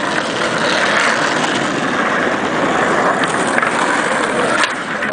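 Skateboard wheels rolling on pavement, a steady rumble, with a few faint clicks in the second half.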